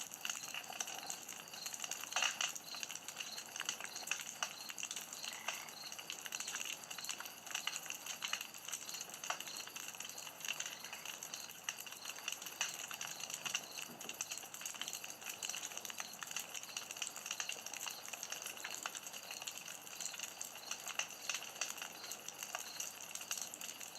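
Campfire burning: a steady hiss with many small crackles and pops, a few of them louder.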